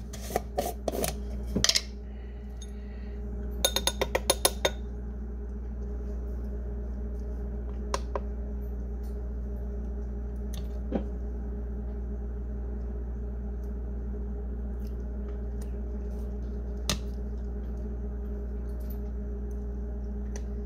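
Glass jar of natural peanut butter being opened and spooned from: a few knocks as the lid comes off, a quick run of about ten light clinks, then scattered small clinks of a spoon against glass and the bowl, over a steady low hum.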